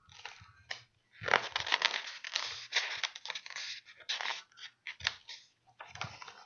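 Paper pages of a picture book rustling and crinkling as they are handled and turned close to the microphone: a dense crackling rustle for a few seconds, then a few shorter crackles.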